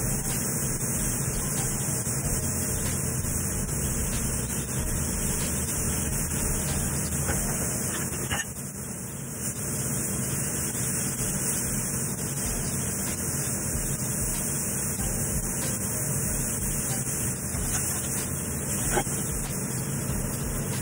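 Floured chicken pieces frying in hot coconut oil in a stainless steel skillet: a steady sizzle, with a few light clicks as metal tongs touch the pan.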